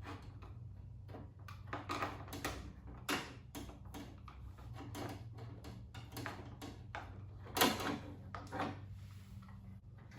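A screwdriver and metal and plastic door-trim parts being worked while screws are taken out of a C3 Corvette's door panel: irregular clicks, taps and scrapes, the loudest about seven and a half seconds in, over a steady low hum.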